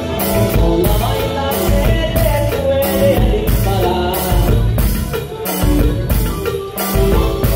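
Live norteño band playing: button accordion carrying the melody over bajo sexto, electric bass and a steady drum-kit beat.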